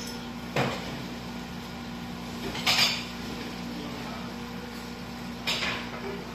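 Metal ladle clinking and scraping against dishes three times, about a second in, near the middle and near the end, as broth is ladled over a plated meal. A steady low hum runs underneath.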